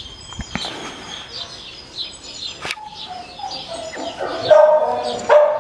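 Small birds chirping in the background, and from about halfway a dog whining in a high, wavering tone that steps down in pitch and is loudest near the end.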